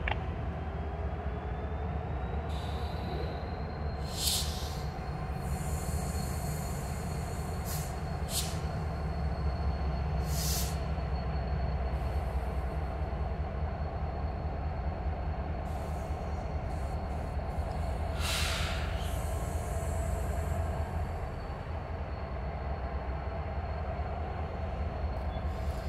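Norfolk Southern diesel locomotive #1111 moving slowly on a train, its engine rumbling steadily under a faint thin high whine. Several brief high-pitched wheel screeches come at about 4, 8, 10 and 18 seconds.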